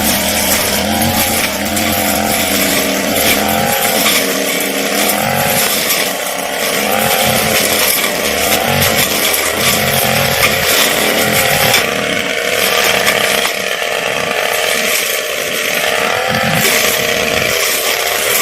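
Brush cutter engine running at high revs, its pitch wavering up and down over and over as the load on the cutting blade changes while it works through dense growth and cut palm fronds.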